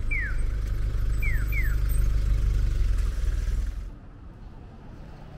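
Train station ambience: a loud low rumble with short falling chirps, often two in quick succession. About four seconds in it cuts to much quieter street ambience.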